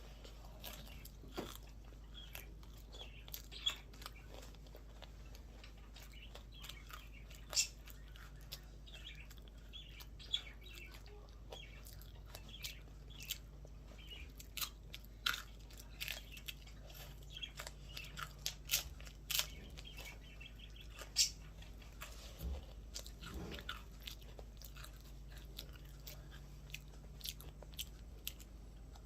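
Someone eating a World Cone chocolate ice cream cone, with irregular crisp crunches and chewing as the wafer cone is bitten and chewed.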